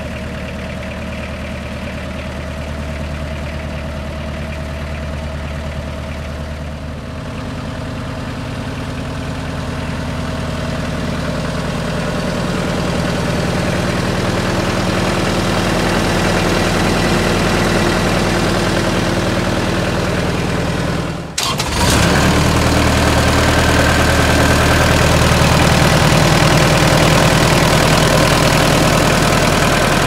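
Kubota V2203-M four-cylinder diesel engine of a 2009 Altec WC126A wood chipper idling just after starting. Its note changes about a quarter of the way through and the level slowly rises. A brief dropout comes about two-thirds of the way through, and after it the engine runs louder and steady.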